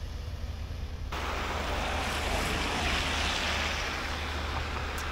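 Steady outdoor rushing noise over a low hum, jumping louder about a second in.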